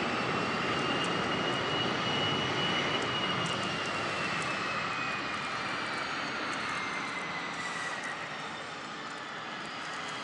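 Twin Williams FJ44 turbofans of a Cessna Citation CJ2 running at taxi power: a steady rush of jet noise with a high turbine whine that rises slightly, then falls in pitch after the middle, the whole sound slowly fading as the jet moves away.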